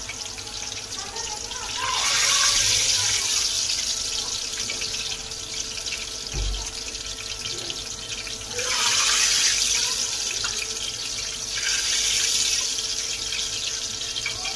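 Hot oil sizzling in a frying pan as fried samosas are lifted out, the hiss swelling louder three times, with a single dull knock midway.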